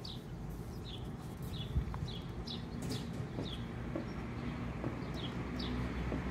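Backyard hens calling: a run of short, high, falling chirps roughly every half second, with a few low notes midway, over a steady low rumble.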